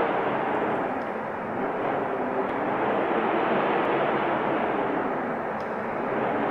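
Wind blowing as a steady rushing noise that eases slightly about a second in, swells again, and eases once more near the end.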